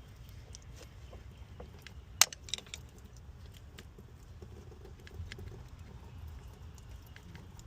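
Small clicks and rattles of hands working at the stuck plastic electrical connector on an engine coolant temperature sensor, with one sharp click about two seconds in. The connector is stuck and won't come off.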